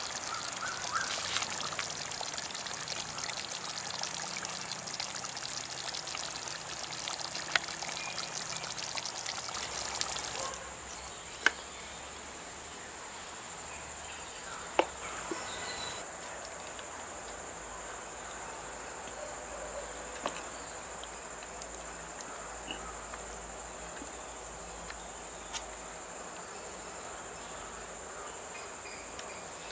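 Jackfruit seed curry bubbling hard in a pot over a fire, a dense fizzing hiss full of small crackles. About ten seconds in it cuts off suddenly to a quieter background: a steady high insect drone with a few sharp clicks.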